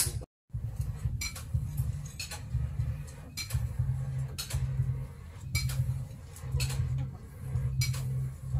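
Light metal clinks and taps, irregular and roughly one a second, as a steel bill hook blade is handled and worked into a bamboo handle, over a steady low rumble. The sound drops out briefly just after the start.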